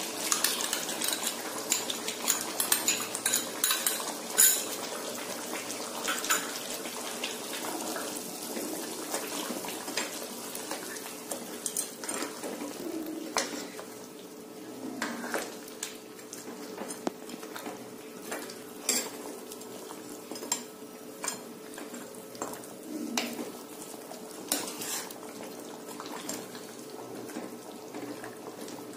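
A steel ladle clinks and scrapes against a steel kadai as mutton is stirred and fried with ginger-garlic paste, over a steady sizzle from the pan. The clinks are irregular, busiest in the first few seconds and sparser after.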